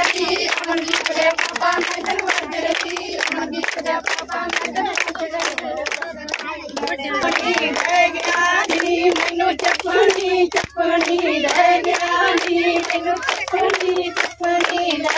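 Punjabi gidha: a group of women and girls singing boliyan together over a steady rhythm of hand claps.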